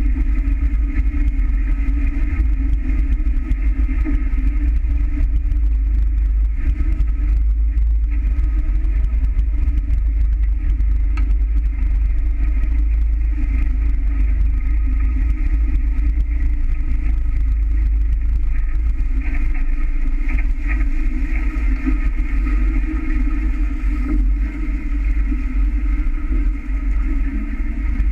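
Wind buffeting the microphone of a camera mounted on a sailing catamaran under way: a steady low rumble with water rushing along the hulls and a steady hum above it.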